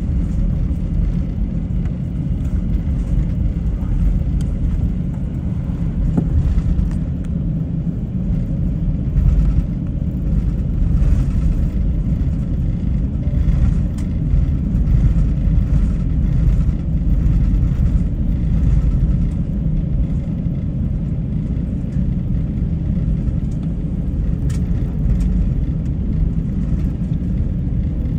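Airliner cabin noise while taxiing after landing: a steady low rumble from the idling engines and the aircraft rolling along the taxiway, with a few faint clicks.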